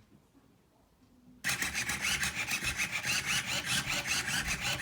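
GAN Robot's motor rapidly turning the faces of a 3x3 Rubik's cube: a fast, continuous mechanical rattle of clicks that starts about a second and a half in.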